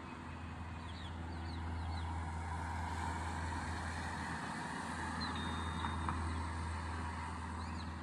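Suburban background noise: a steady low hum under the sound of road traffic, which swells a couple of seconds in. A few faint, short high bird chirps sound over it.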